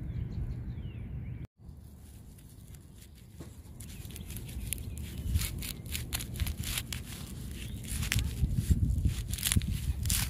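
Outdoor rustling and crackling from movement among wet plants, with a low rumble on the microphone. The sound cuts out completely for a moment about one and a half seconds in, and the crackles grow busier in the second half.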